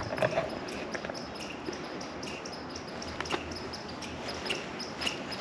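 Footsteps walking over dry grass: a few soft, irregularly spaced steps over a steady outdoor hiss.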